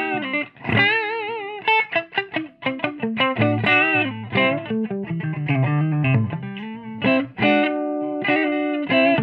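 Electric guitar played through a Scholz Rockman Rock Module into a Bogner tube amp: a run of picked single notes and chords, several held with a wavering pitch, and a low note held about five to six seconds in.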